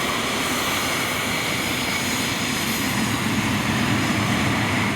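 Cessna CitationJet CJ1's twin turbofan engines running steadily: a rushing jet noise with a thin steady whine, growing a little louder about three seconds in.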